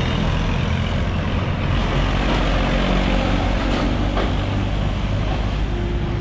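Heavy vehicle engine running close by with street traffic noise: a steady, loud low rumble.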